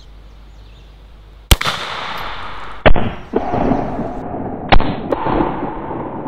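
Zeus big-bore pre-charged air rifle with a 58 caliber barrel firing 24 gauge bird shot shells: three sharp reports, each with a lingering echo.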